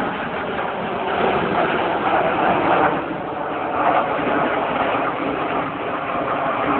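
Jet noise from BAE Hawk T1 aircraft flying an aerobatic formation display: a steady rushing sound that swells and eases slightly.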